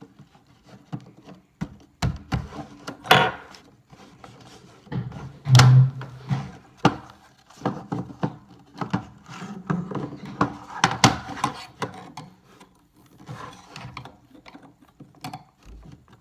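Irregular clicking, knocking and rattling as the back plate of a fire alarm annunciator is handled and fitted back onto the unit, with several louder knocks along the way.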